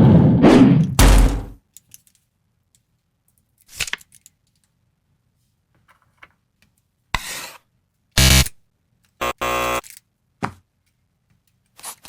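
A string of short, separate cartoon sound effects, among them two buzzer tones in the second half, with a few short clicks and knocks between them.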